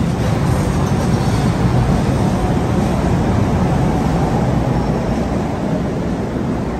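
LRT-1 light rail train standing at a station platform, giving a steady low rumble that slowly eases off.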